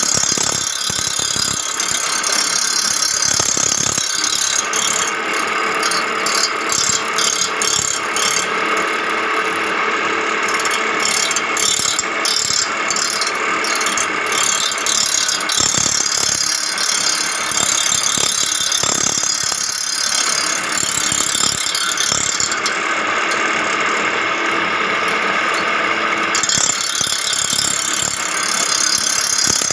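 Reel grinder grinding the blades of a greens mower's cutting reel: the grinding wheel rasps steadily against the turning reel over the running machine. The high hiss flickers rapidly for several seconds partway through and thins out briefly later on.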